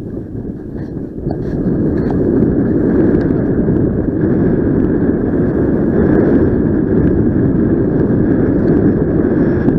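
Wind buffeting the microphone during a paraglider flight: a loud, steady rumbling rush that grows heavier about a second in.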